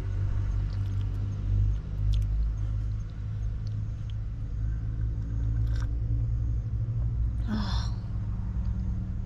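Fishing boat engine running with a steady low drone. Near the end comes a short clunk as a ceramic mug is set down on a wooden coaster.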